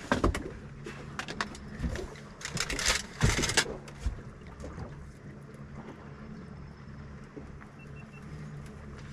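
A boat motor hums steadily at trolling speed while a hooked salmon splashes at the surface and is scooped into a landing net, loudest about two and a half to three and a half seconds in, with a few knocks from the net and gear.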